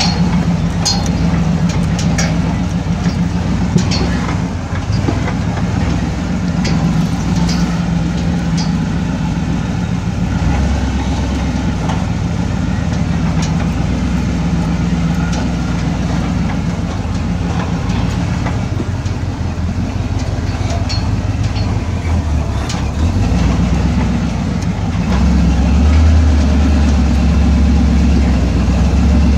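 Off-road vehicle's engine running steadily at low speed on a rough dirt trail, with scattered clicks and knocks from the vehicle jostling over the bumps. Near the end the engine's low rumble grows louder.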